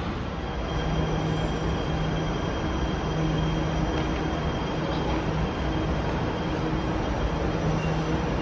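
MRT Jakarta electric train standing at the platform, giving off a steady hum with a faint high whine over even rail-station noise.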